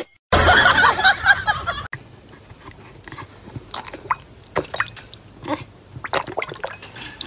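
A louder burst of busy noise in the first second and a half, then a dog's mouth splashing and lapping in a bowl of water as it snaps at a floating toy, in scattered short wet splashes and clicks.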